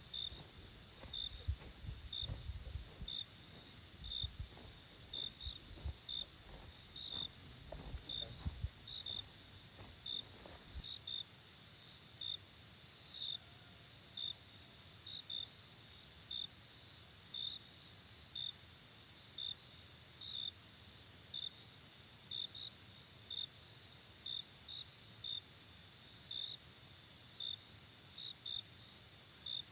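Insects chirping: a steady high trill with short chirps repeating about once or twice a second. Low knocks and rumble during roughly the first ten seconds cut off abruptly about eleven seconds in.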